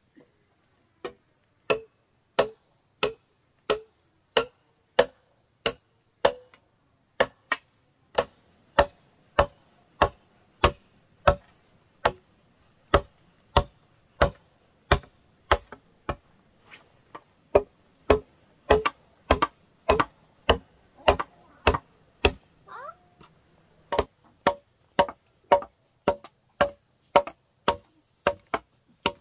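A hand tool striking wood or bamboo over and over, a sharp knock about three times every two seconds, with a few short pauses, as in chopping or hammering.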